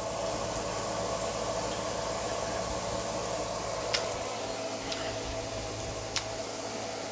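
Steady whirring hiss of a kitchen cooker-hood extractor fan. Two sharp clicks of a spoon come about four and six seconds in.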